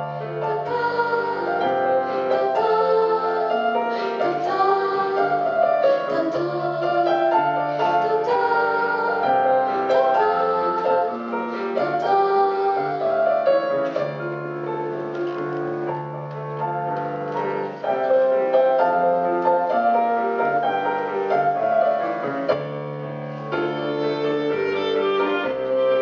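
Piano playing an instrumental passage of a song, with no singing.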